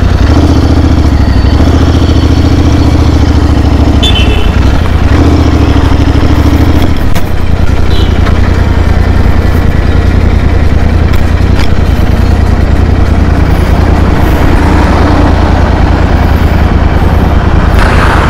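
Motorcycle engine running at low speed as the bike is ridden slowly and brought in to the kerb, a low, steady engine note heard close from the rider's own bike.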